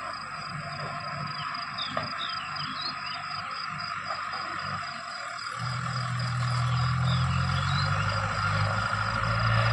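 Heavy diesel engine running at a low drone that grows louder and steadier about halfway through, with a steady high insect trill and short bird chirps behind it.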